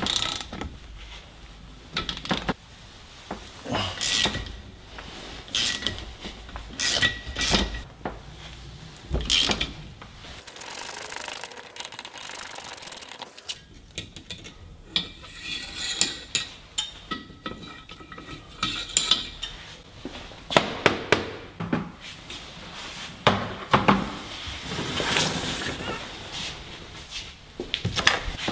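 Hand tools working the bolts of a billet Subaru EJ engine case as it is opened: a ratchet clicking and steel sockets and bolts clinking against the metal case, some clinks ringing briefly. A short hiss about halfway through.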